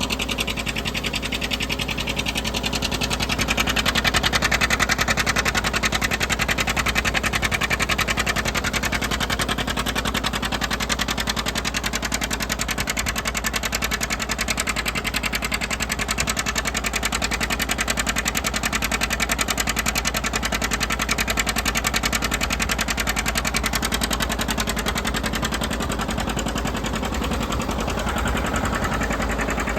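John Deere 720's two-cylinder diesel engine running steadily under load with a rapid even pulse, driving a Gehl feed grinder grinding chicken feed. It gets a little louder about four seconds in.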